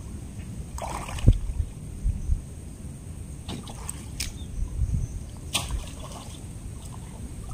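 Hands groping through shallow muddy water for fish, sloshing and trickling, with a few short splashes about a second in, around the middle, and later on.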